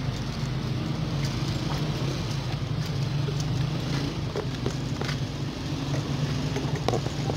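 A steady low engine drone, with a few faint taps over it.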